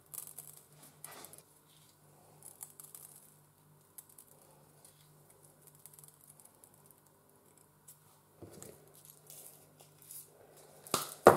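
Sugar sprinkles rubbed from a pinch between the fingers and pattering onto a frosted cupcake and a hard worktop: faint scattered ticks over a low steady hum. A sharper knock comes near the end.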